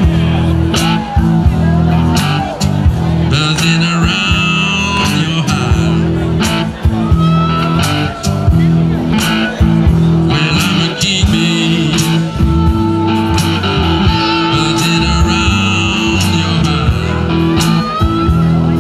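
Live blues band playing: homemade cigar-box guitars over a steady drum beat, with harmonica phrases coming in several times.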